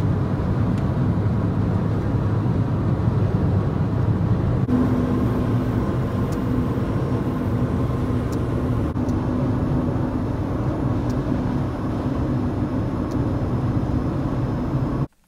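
Steady road and engine noise inside a car cruising at freeway speed. A faint steady hum joins in about five seconds in, and the sound cuts off abruptly just before the end.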